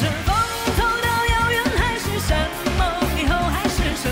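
Female lead vocal singing a Mandarin pop song live over a full band backing with a steady beat.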